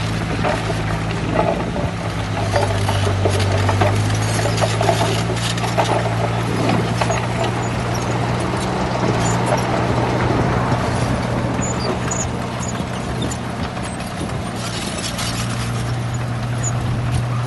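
Bulldozer's diesel engine running steadily, with an irregular clanking and rattling of its steel tracks over it.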